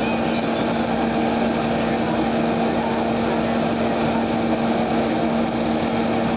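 Small engine of a Hurst hydraulic rescue-tool power unit running steadily at constant speed, a continuous hum with a fixed pitch.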